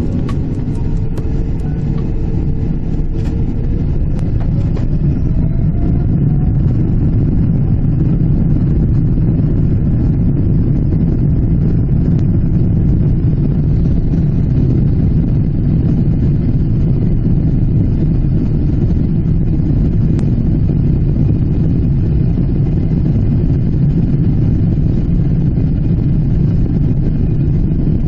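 Boeing 777-300ER's GE90 jet engines heard from inside the passenger cabin, a steady loud rumble that builds over the first few seconds with a whine rising in pitch as the engines spool up to high thrust, then holds steady.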